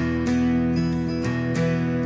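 Background music: acoustic guitar strumming steadily.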